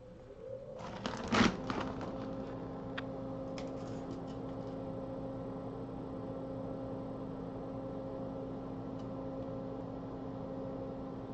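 Bench fume extractor fan switched on, spinning up within the first second or two, then running with a steady hum. A few clicks sound as it starts, and a few faint ticks follow later.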